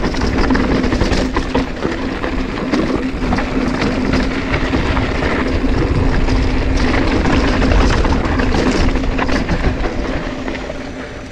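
Mountain bike descending a dirt trail: tyres rumbling over dirt and rock, wind on the microphone, and the bike rattling over bumps, over a steady buzz. The noise eases off near the end.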